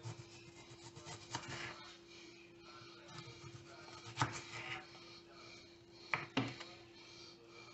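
Kitchen knife slicing through a whole tomato on a plastic cutting board: quiet rubbing strokes through the flesh, with a few sharp taps as the blade meets the board, the loudest about four seconds in and two close together about six seconds in.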